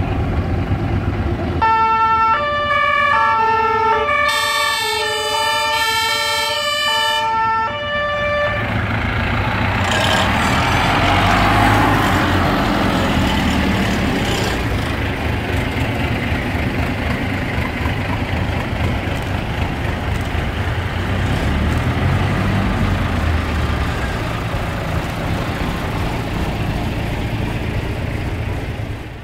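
Fire engine siren horn sounding a series of short notes that step up and down in pitch for about six seconds. After that the diesel engines of the fire engines run as they roll past close by.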